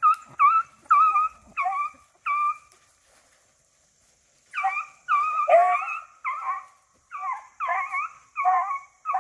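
Beagles giving tongue in short, high yelps: a run of about five, a pause of about two seconds, then about eight more. These are hounds baying as they run a rabbit's scent trail.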